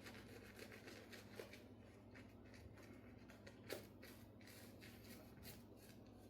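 Faint, repeated brushing strokes of a shaving brush working lather over the face, with one louder stroke near the middle.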